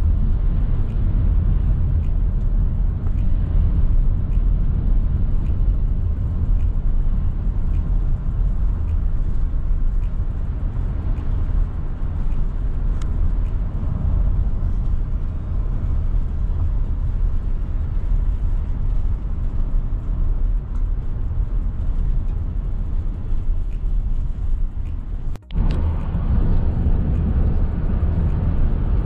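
Steady low rumble of a car driving on the road, heard from inside the cabin: tyre and engine noise. It cuts out for a moment near the end.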